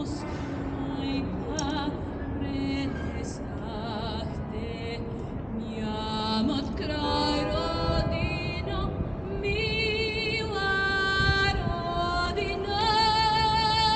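Voices singing a slow song with long held notes and strong vibrato, the singing swelling louder over the last few seconds.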